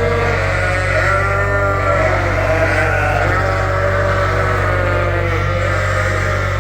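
Many Dorset lambs bleating at once, their calls overlapping with no pause: hungry lambs clamoring for milk on their weaning day.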